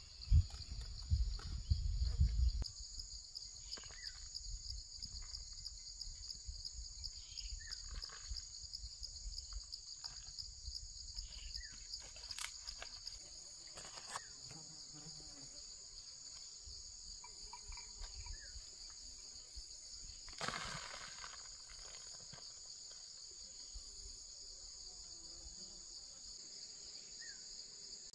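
A chorus of insects trilling steadily in a high, even buzz. It is broken by scattered short knocks and rustles, and by a low rumble during the first two seconds or so.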